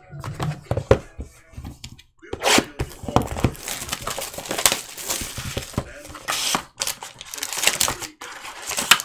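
Cellophane and foil wrappers of trading-card packs being crinkled and torn open by hand, in many short crackling bursts.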